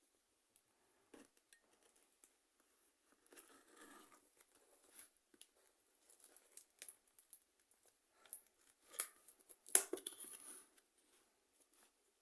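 A parcel being opened by hand: faint rustling, cutting and tearing of packaging, with scattered small clicks and one sharper click a little under ten seconds in.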